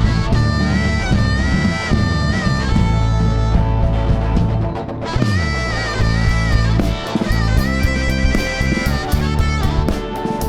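A rock band playing an instrumental passage with drums, bass and guitar, under a sustained lead melody that bends between notes. About five seconds in, a low note slides downward.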